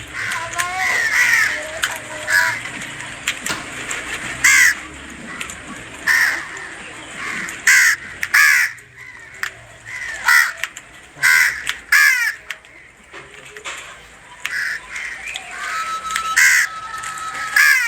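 Repeated short, harsh bird calls recurring every second or two, mixed with sharp clicks and knocks; a steady tone sounds near the end.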